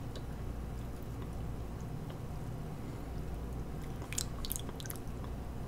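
Wet mouth sounds of someone tasting soda after a sip: lip smacks and tongue clicks, bunched together about four seconds in, over a steady low hum.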